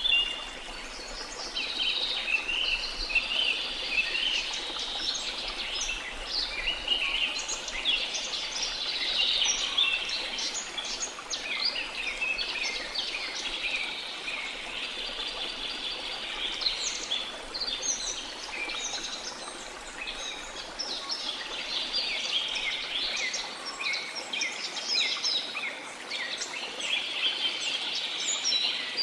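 A dense chorus of many small songbirds chirping and twittering continuously in high, quick notes, over a faint steady background wash.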